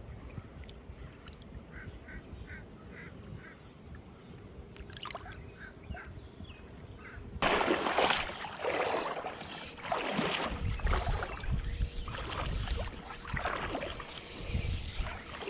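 Distant waterfowl giving a string of short, evenly spaced calls. About halfway through, these give way suddenly to a much louder, irregular rushing noise.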